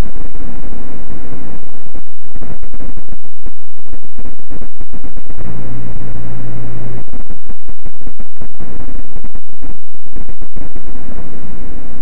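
Hiss and crackle from a home security camera's microphone, boosted to clipping, over a steady low hum. A louder low hum comes in about five and a half seconds in and stops about a second and a half later.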